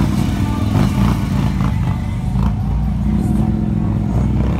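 Motorcycle engines running at low speed as bikes roll slowly past one after another, among them a three-wheeled Can-Am Spyder. The engine sound is loud and steady, low-pitched throughout.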